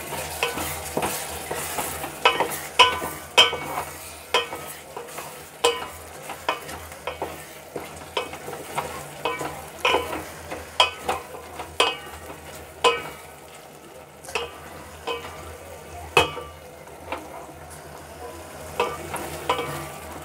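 Spatula stirring peas, tomatoes and onions frying in a stainless steel pot: irregular knocks and scrapes against the metal, a few ringing briefly, over a soft sizzle.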